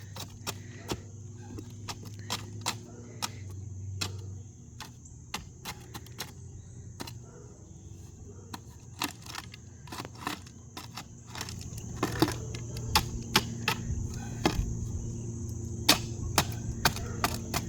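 Irregular sharp clicks and knocks of work at a yard hydrant, over a steady low engine hum and a steady high insect drone.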